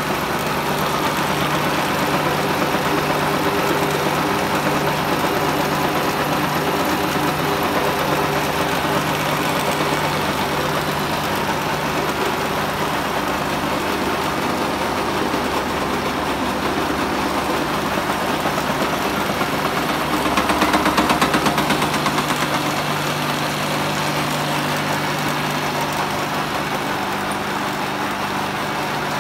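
Horizontal boring machine running, a steady machine hum with several fixed tones. It swells louder for a couple of seconds about two-thirds of the way through.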